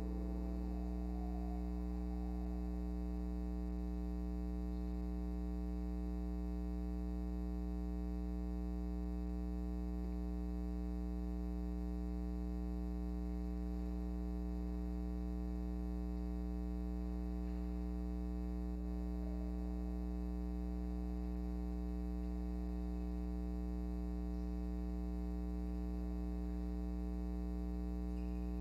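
Steady low electrical mains hum with many overtones, unchanging throughout, as a piano's last notes die away in the first second.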